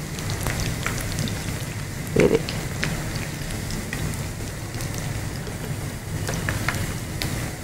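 Aloo suji (potato and semolina) squares deep-frying in hot oil: a steady sizzle with many small crackling pops.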